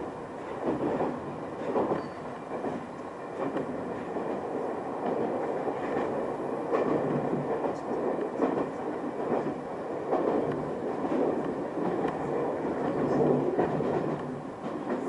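Local train running along the line, heard from inside the carriage: a steady rumble of wheels on rails that swells and eases a little, with occasional clacks from the track.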